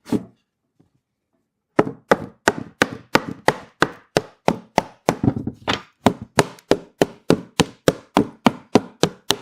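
Cedar beehive box boards being tapped together at their dovetail joints: a single wooden knock, a pause of over a second, then a steady run of sharp knocks, about two or three a second.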